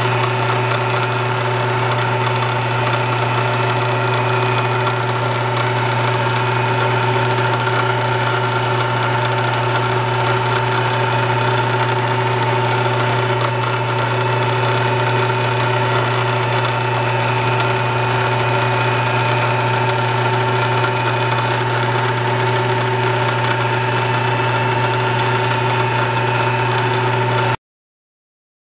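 Vertical milling machine running steadily as an end mill cuts inside the throttle bore of a Porsche 911 mechanical fuel injection intake manifold, re-boring it; a strong, even hum with several steady tones above it. The sound cuts off suddenly near the end.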